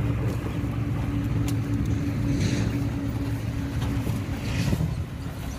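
Diesel engine of a dump truck running steadily as the truck drives at low speed, with two short hisses about two and a half and four and a half seconds in.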